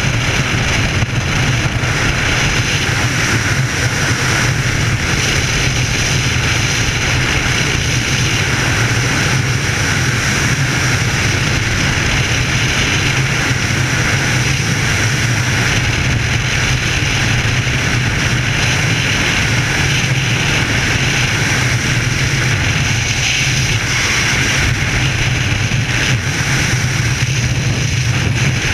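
Freefall wind rushing over a helmet-mounted camera's microphone during a skydive: a loud, steady, unbroken rush with a low rumble beneath it.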